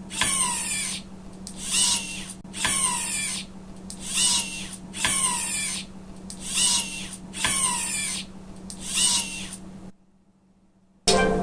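Robotic whirring of the Magqi JindSmart automatic wireless car charger's motorized arms, repeated eight times at steady intervals, each whir falling in pitch, over a steady low hum.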